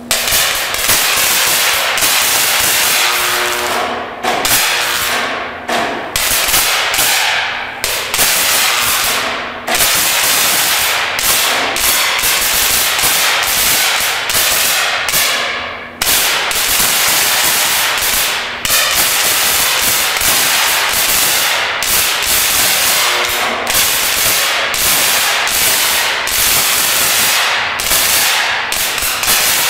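A 75,000-volt DC high-voltage arc crackling and snapping loudly, almost without a break, dropping out for a moment every second or two.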